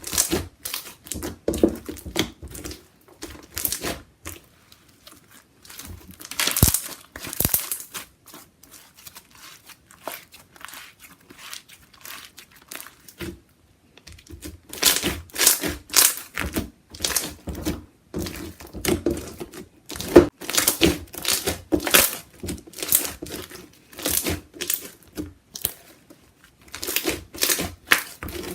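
Crunchy fishbowl slime with plastic beads being squeezed and poked by hand, the beads giving dense runs of crisp crackling clicks. The clicking thins out for several seconds midway, then picks up again.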